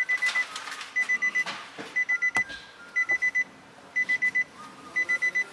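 Nissan Patrol's in-cabin warning chime beeping in quick groups of four, about once a second, with a sharp click about two seconds in.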